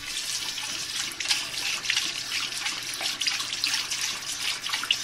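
Water running from a bathroom sink faucet into the basin, a steady hiss with uneven splashing.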